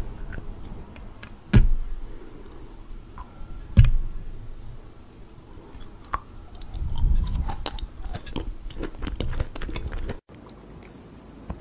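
Close-miked biting and chewing of green cherries: two sharp bites about two seconds apart, then a stretch of chewing with small crisp clicks. The sound breaks off a little before the end.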